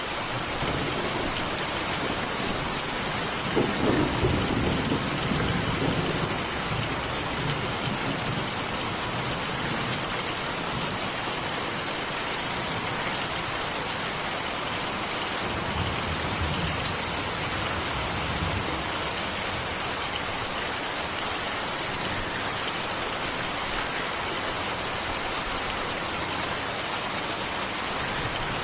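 Steady, heavy rain hissing, with a deeper low rumble swelling about four seconds in and again around sixteen seconds.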